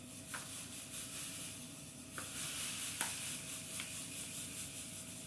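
Sugar being poured from a bag into a mixing bowl on a kitchen scale: a quiet, steady hiss of grains that grows heavier about two and a half seconds in, with a few faint ticks.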